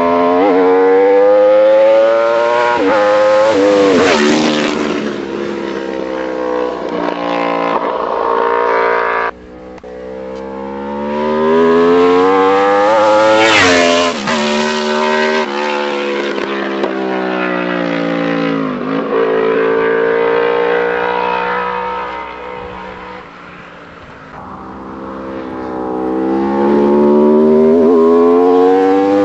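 Aprilia RSV4's V4 engine through an Austin Racing aftermarket exhaust, accelerating hard through the gears with the pitch climbing and stepping down at each shift. It passes by at speed several times, the note dropping sharply as it goes past.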